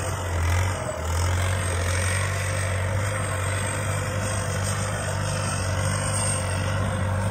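Kubota M7508 tractor's turbocharged diesel engine running steadily under load while pulling a disc plough through soil, with a brief dip about a second in.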